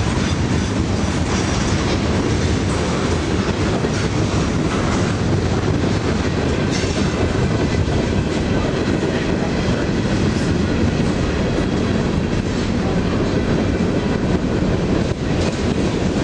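Freight train of tank cars and covered hoppers rolling past close by: a steady, loud noise of steel wheels running on the rails, with a few sharp clicks.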